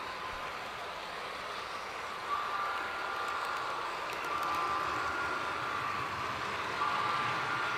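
HO-scale model coal train rolling along the track, heard from a car riding in the train: a steady rattling rush of wheels on rail. From about two seconds in, high steady tones come and go three times over it.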